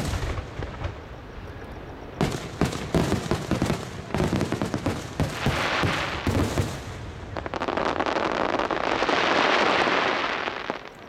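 Aerial fireworks shells bursting overhead in a rapid series of booms. Then a long, dense crackling hiss from the bursting stars swells twice and fades shortly before the end.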